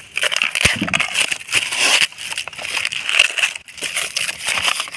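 Packaging being torn open and handled by hand, with irregular crackling and rustling and scattered small snaps.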